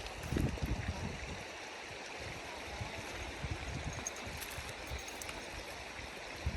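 River water flowing steadily, an even rushing hiss, with some low rumbling in the first second.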